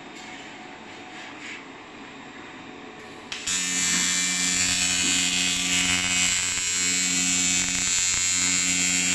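TIG welding arc buzzing steadily as bike chainstays are welded. The arc strikes suddenly about three and a half seconds in, after a low background hum.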